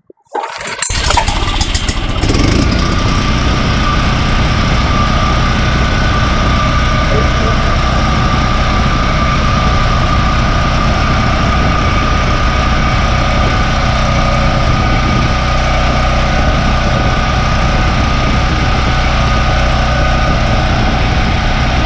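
Portable generator's small engine starting up about half a second in, catching within a couple of seconds, then running at a steady speed.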